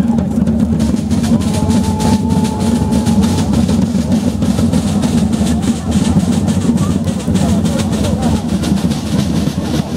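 A line of parade side drums played together by a drum corps, a dense, rapid beat of strokes that runs without a break.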